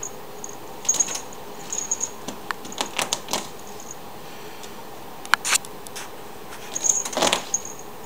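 A ferret's claws clicking and scrabbling on the tile floor and against a clear plastic barrier in scattered bursts, the loudest scrabble about seven seconds in.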